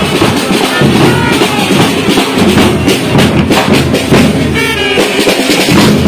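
Procession band of snare drums and a large rope-tensioned bass drum beating a fast, loud, driving rhythm, with trumpets playing short phrases over it.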